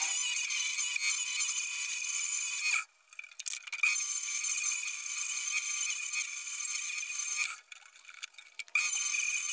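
Wood lathe spinning a wooden handle blank while a turning chisel cuts it: a steady high whine with the scrape of the cut. The sound drops out twice, about three seconds in and again about eight seconds in.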